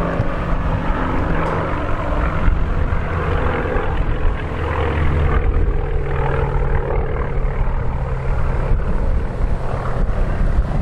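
Vintage twin-engined piston aircraft flying overhead: a steady drone of propellers and engines.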